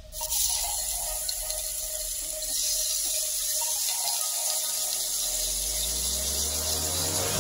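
Sliced onions and chopped green chillies sizzling in hot oil in a frying pan. The frying hiss starts suddenly as they go in and stays steady, getting a little louder about two and a half seconds in.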